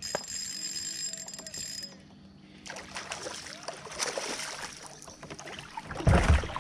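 A largemouth-type bass being fought on a spinning rod from a kayak. The spinning reel whirs steadily as line is cranked in for the first couple of seconds, then comes splashing and handling commotion, and the loudest sound is a heavy thump and splash about six seconds in.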